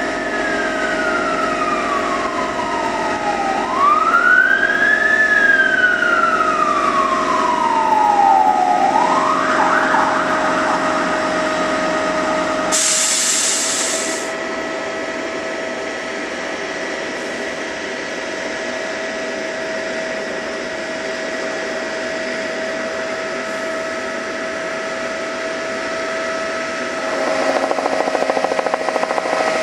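An emergency vehicle's siren wails, sweeping up and down twice and then rising quickly once, over a steady high whine. About 13 s in there is a short burst of hiss. Near the end, the rumble of a freight train passing on the station tracks comes in.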